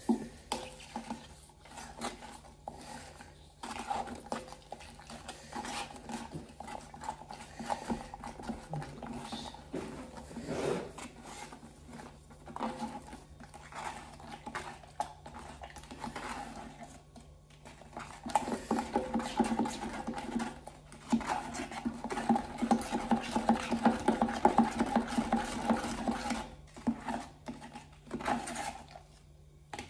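Wet, scraping strokes of a stirrer working all-purpose filler powder and water into a paste inside its plastic tub. The strokes are scattered at first and become a fast, continuous run of stirring over the last third.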